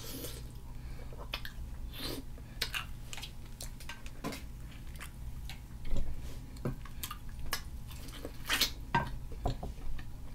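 Close-up eating sounds: chewing and wet mouth and lip smacks from seafood-boil shrimp eaten by hand, with scattered clicks of fingers and food against a glass baking dish, over a low steady hum.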